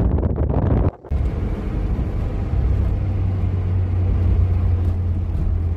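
Wind buffeting the microphone for about a second, then a cut to steady engine and road noise inside a moving Peugeot 405's cabin.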